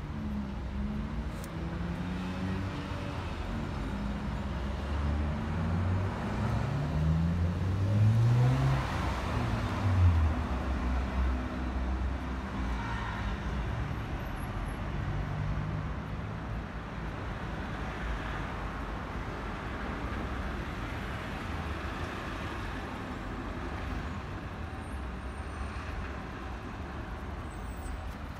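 Road traffic: a vehicle engine changing pitch and rising, loudest about eight to ten seconds in, over a steady low rumble of traffic.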